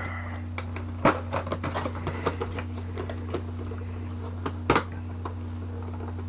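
Cardboard and plastic action-figure packaging being handled and picked open: scattered light clicks and taps, with two sharper knocks, one about a second in and one near five seconds. A steady low hum runs underneath.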